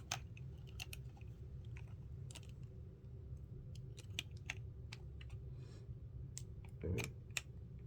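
Scattered small clicks and crinkles of plastic camcorder accessories and packaging being handled, with a soft knock about seven seconds in, over a steady low hum.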